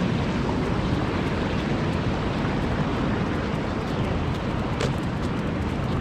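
Steady rushing of river water, with wind buffeting the microphone.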